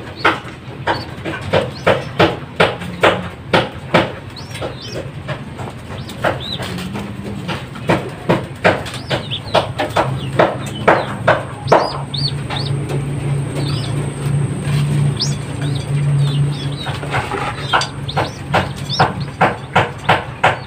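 Pigeon squabs squeaking in rapid, repeated short cheeps while being handled for leg-ringing. The cheeps come in bursts, with a lull in the middle where a low steady drone is heard.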